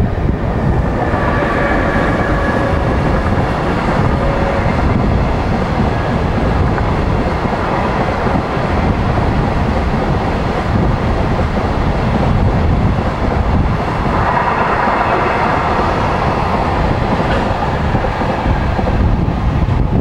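Container freight train passing, a steady loud rumble and rush of its wagons' wheels on the rails. A brighter, higher rush comes in for a few seconds past the middle.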